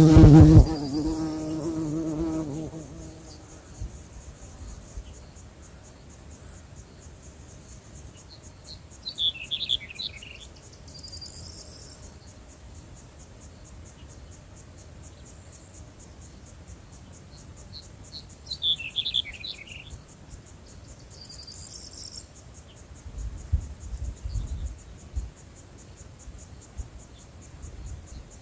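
Nature ambience of steady, high insect chirring with fine rapid ticking, broken by a short burst of chirps about every nine seconds. A ringing tone with overtones opens loudest and fades away over the first few seconds.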